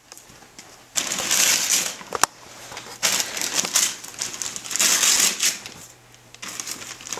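Gift wrapping paper being torn and crumpled in four rough bursts, with one sharp snap a little after two seconds in.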